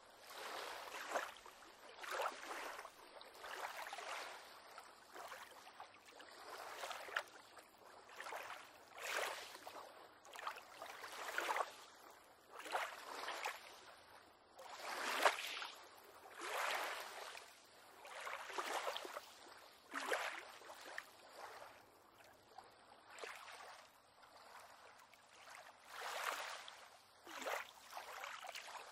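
Small waves lapping and sloshing against a pier, in uneven splashes about every second or so.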